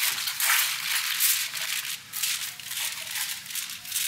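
Aluminum foil crinkling and rustling in irregular crackly bursts as it is pressed and crimped tightly around the rim of a foil baking pan.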